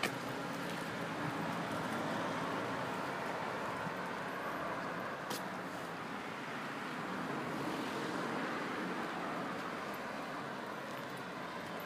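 Steady road-traffic noise of cars moving along a street, with a brief click about five seconds in.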